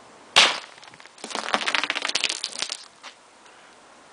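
Homemade explosive volcano going off: a sudden loud burst about half a second in, then about a second and a half of rapid crackling.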